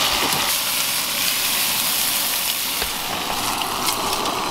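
Thin marinated asada steak sizzling in a cast iron skillet over a camp stove: a steady frying hiss.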